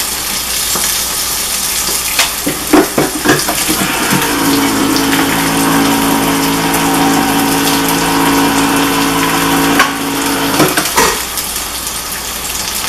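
Cut okra and sliced sausage sizzling in pans on a gas stove, with a few knocks of kitchenware in the first few seconds. A steady hum sets in about four seconds in and stops suddenly about eleven seconds in.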